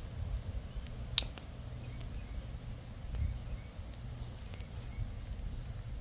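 Small wood campfire crackling, with one sharp pop about a second in and a few fainter ticks, over a steady low rumble.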